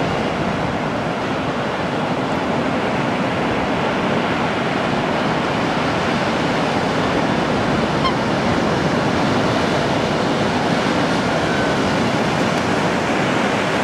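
Surf breaking and washing up a sand beach, a steady rushing noise.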